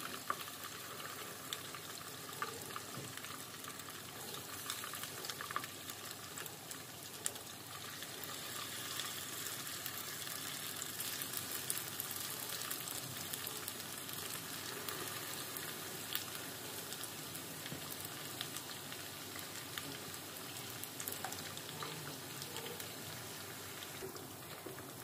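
Ghevar batter deep-frying in a small pot of hot oil: a steady sizzle with scattered crackles and pops, a little louder in the middle.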